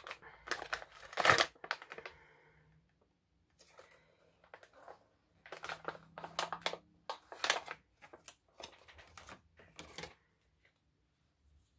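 Product packaging being handled and opened by hand: crinkling and rustling with short clicks and taps in several clusters over about ten seconds, as a small skincare jar is taken out of its box.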